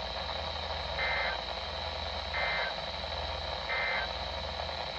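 Three short bursts of Emergency Alert System SAME data tones from a NOAA Weather Radio broadcast, each about a third of a second long and a little over a second apart, over steady radio hiss. Three bursts this short are the end-of-message code that closes an alert.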